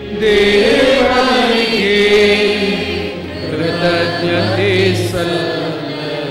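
Liturgical chant sung by voices, likely the choir and congregation, in a slow, wavering line; this is the sung response that closes the Mass after the dismissal. It eases off near the end.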